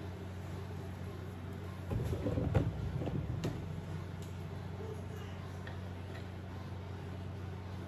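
Handling noise: a short cluster of knocks and clicks with a low rumble, then a few faint ticks, over a steady low hum.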